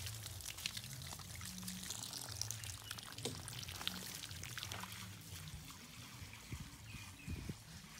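Water pouring from a watering can onto plants and soil in a pot, splashing and trickling, then dwindling to scattered drips, over a faint low hum.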